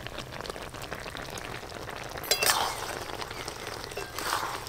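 Jujubes boiling in jaggery syrup in an open wok over a wood fire: a steady bubbling hiss with small pops and ticks, and one clear clink about halfway in.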